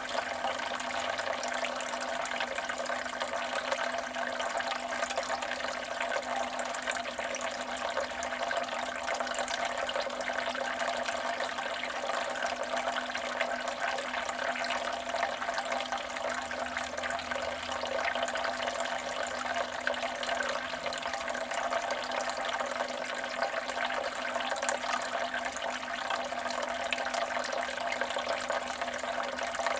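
Water trickling and splashing steadily from the pump spout of a Kelkay 45030 'Playtime' garden water feature, falling into a bucket and down its stone-effect tiers.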